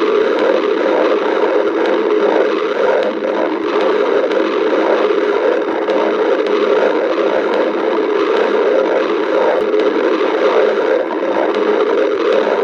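Stomach growling: a continuous rumbling gurgle from the belly that goes on without a break.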